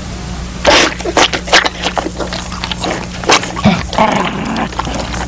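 A dog snarling and growling in a frenzied attack, in quick, irregular snarls that break out about a second in over a steady low hum.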